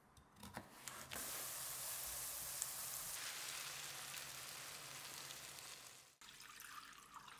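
A few knife knocks on a wooden board, then a steady sizzle from diced vegetables in a hot pan as orange juice is poured over them. The sizzle cuts off suddenly about six seconds in.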